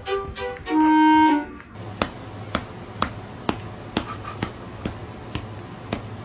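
Background music with short woodwind-like notes that stops about a second and a half in. It is followed by a steady ticking, about two ticks a second, over a low hum.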